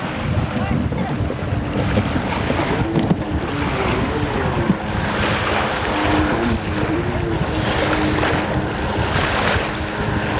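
Jet ski engine running on the water, its pitch wavering up and down twice, under heavy wind buffeting on the microphone and the rush of splashing water.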